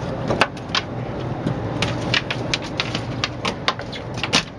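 Freshly landed dorado (mahi-mahi) flopping on a boat deck, its body and tail slapping the deck in about a dozen sharp, irregular smacks.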